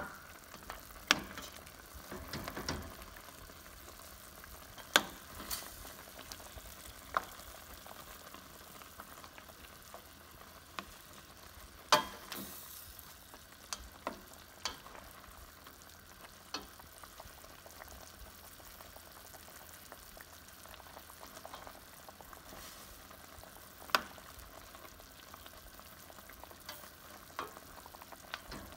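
Chicken adobo simmering in its sauce in a stainless steel pan, a steady bubbling sizzle, while a plastic spoon stirs the drumsticks and now and then knocks sharply against the pan's rim.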